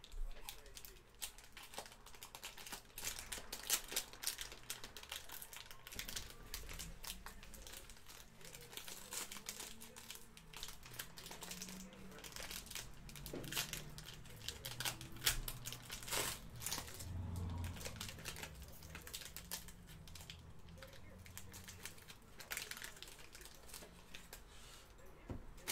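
Foil wrappers of 2012-13 Panini Prime Hockey card packs crinkling and tearing in the hands as the packs are pulled open: a run of quick, irregular crackles.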